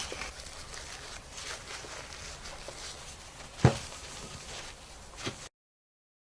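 Faint rubbing and handling as the stripped inner insulation of a primary cable is wiped clean with a degreasing cloth, with one sharp knock a little after halfway and a lighter one shortly after; the sound then cuts to dead silence.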